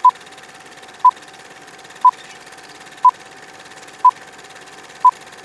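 Film countdown leader sound effect: a short, high, pure beep once a second, six times, over a steady faint hiss.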